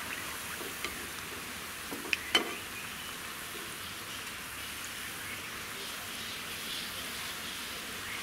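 Banana bondas deep-frying in hot oil in a kadai: a steady sizzle with fine crackling, with a couple of sharp clicks about two seconds in.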